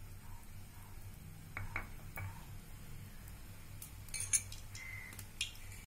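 A few light clinks of a metal spoon against a wok and a dish as melted ghee is spooned into the pan, the loudest about four seconds in, over a faint steady hum.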